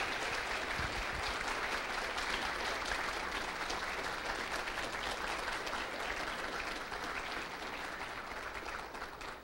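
Conference audience applauding, a dense, steady clapping that slowly tapers off near the end.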